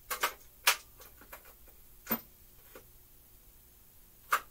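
Metal hand tools clinking and knocking as someone rummages through a tool chest: several sharp, irregularly spaced clicks, the loudest under a second in.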